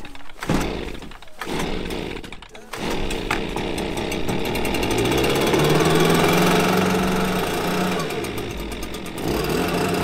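Stihl handheld two-stroke leaf blower being pull-started: a few short pulls on the starter cord, then the engine catches about three seconds in and runs, revving louder for a few seconds before easing off near the end.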